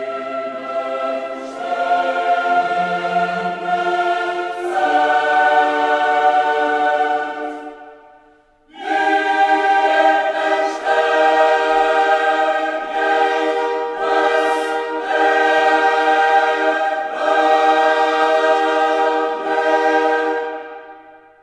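Background choral music: a choir singing slow, held chords, breaking off briefly about eight seconds in before resuming.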